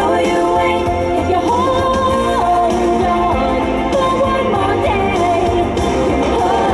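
A song playing: music with a singing voice holding and gliding between long notes, at a steady loudness.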